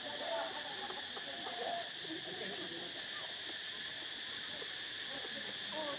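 Steady, high-pitched insect drone, with faint short squeaky calls over it.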